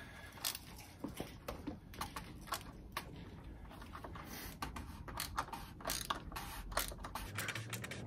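3/8-inch ratchet clicking in a run of quick, uneven strokes as it unscrews the loosened oil filter housing cap on a Mercedes C-Class diesel engine.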